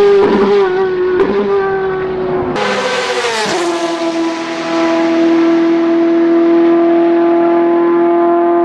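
Racing car engine at high revs. About two and a half seconds in the sound changes abruptly: the pitch drops over about a second, then holds as one steady note for the rest.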